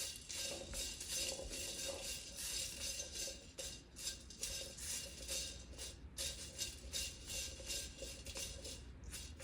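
Spatula stirring whole spices in a dry wok, the seeds rattling and scraping against the metal in an even rhythm of about two to three strokes a second.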